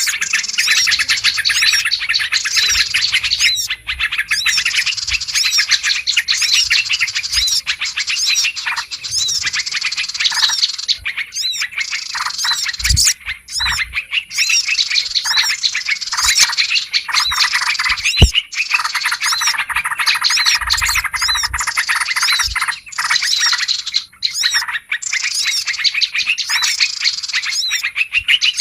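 Bird-lure recording of many small birds chirping and calling at once, a dense, noisy chatter with a few brief gaps, made to draw in yellow-vented bulbuls and other small birds.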